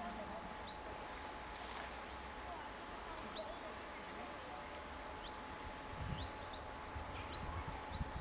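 Small songbirds calling in a conifer forest: short, high, curved chirps repeated every half second or so. A low rumble on the microphone comes about six seconds in.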